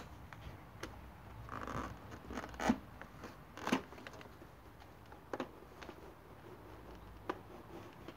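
Plastic tank cover of a Honda CBR600RR being worked loose and pulled off by hand: plastic scraping and rubbing, with a series of sharp clicks and snaps as it comes free, the two loudest about a third of the way through and near the middle.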